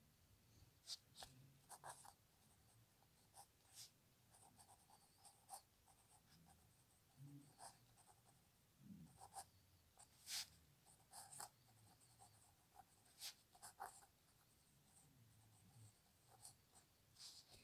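Faint scratching and tapping of a pen nib writing cursive on a sheet of paper, in short, irregular strokes.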